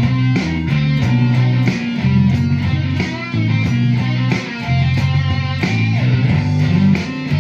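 Electric guitar playing a rock riff of sustained low notes and chords, with a note bent in pitch near the end.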